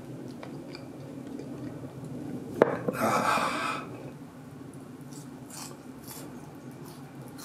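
Chopsticks and dishes clinking lightly at a table, with a sharp tap about two and a half seconds in, followed by a throaty, drawn-out "aah" lasting about a second.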